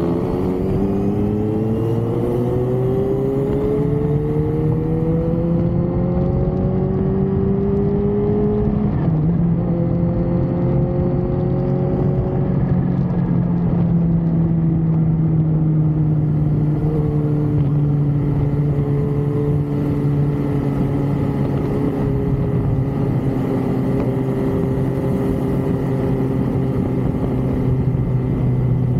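A vehicle's engine speeding up, rising in pitch for the first several seconds, dropping with a gear change about nine seconds in, then running on with its pitch slowly falling, over a steady rush of road and wind noise.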